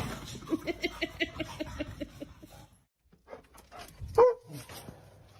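A dog giving a fast run of short, high yips, about six a second. After a brief break comes one louder bark a little after four seconds in.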